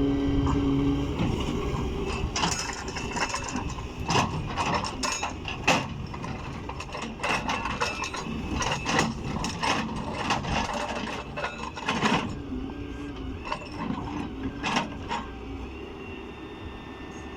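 Daewoo excavator with a hydraulic breaker working on stone: irregular sharp metallic clanks and knocks over the engine running, thinning out near the end.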